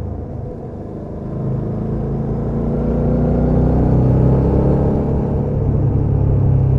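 Suzuki V-Strom 650 XT's V-twin engine running through its stock exhaust while riding, a low steady note that grows louder over the first few seconds and then holds.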